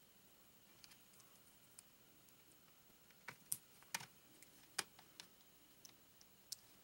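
LEGO plastic pieces clicking and tapping as small transparent flame elements are handled and pressed onto the bike: a few faint clicks at first, then a run of sharper clicks about halfway through, against a near-silent background.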